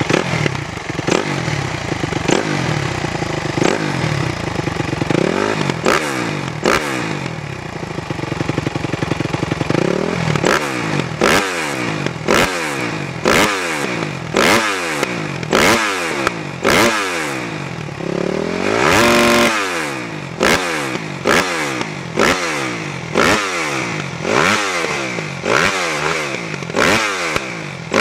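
2009 Suzuki RM-Z250's four-stroke single-cylinder engine revved in short throttle blips, rising and falling about once a second, with one longer rev held high a little past halfway.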